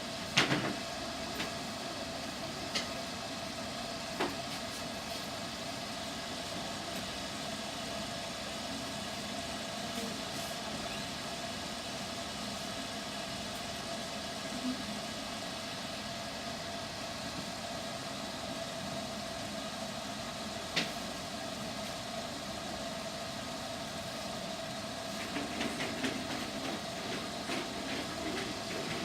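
Salon hood hairdryer running steadily: a constant blowing hiss with a steady hum tone. A few short sharp knocks cut through it, the loudest right at the start.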